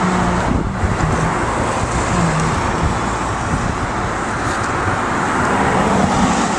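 Steady road traffic noise, a continuous even rush of passing cars.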